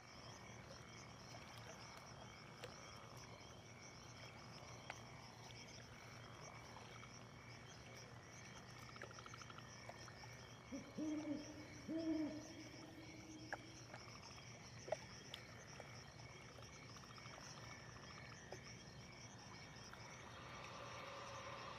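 Faint night-time nature ambience: a steady, finely pulsing chorus of night insects, with an owl hooting twice near the middle, the second hoot longer. A few faint ticks fall here and there.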